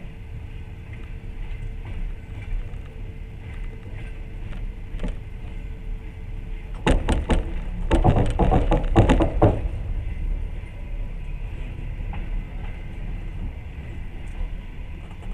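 Steady running rumble of a passenger train heard from inside the coach. Midway a burst of loud, sharp clattering knocks lasts about three seconds, then the plain rumble returns.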